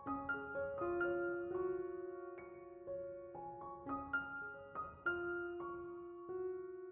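Soft background piano music: single notes and chords struck one after another, each ringing and fading.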